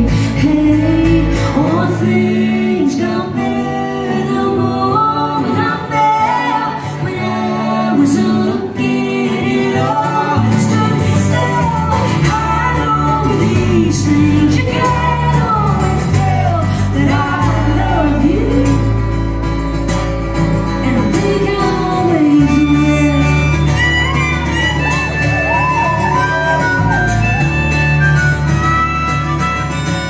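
Live band playing a song: a woman sings over strummed acoustic guitar and electric bass. About three-quarters of the way through, a harmonica comes in with held high notes.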